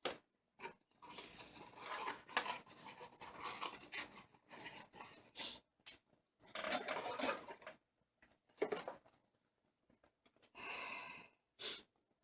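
Hands handling small plastic and metal computer parts: irregular rustling and light clicks, in several short bursts.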